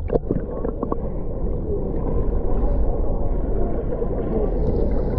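Muffled, steady low rumble of moving water, heard with the microphone submerged in the waterfall's plunge pool. There are a few clicks and bubbles in the first second as the camera goes under.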